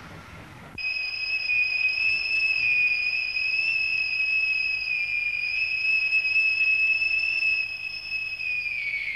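Factory whistle blowing the six o'clock signal. It starts about a second in as one long, steady, high-pitched note and begins to fall in pitch near the end.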